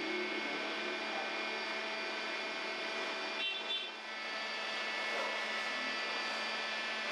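Steady hum and whir of bakery machinery, with a brief higher tone about three and a half seconds in.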